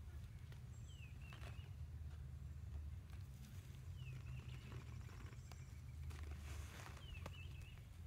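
A bird calls three times, about every three seconds, each call a quick downward slur followed by a short trill, over a low steady rumble. Soft crumbly rustles and light clicks come from hands working the soil.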